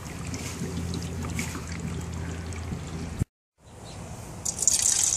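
Dry ice bubbling in a glass jug of homemade root beer as it sublimates and carbonates the drink. After a brief cut to silence a little past three seconds, root beer is poured from the jug into a plastic cup, the splashing pour getting loud near the end.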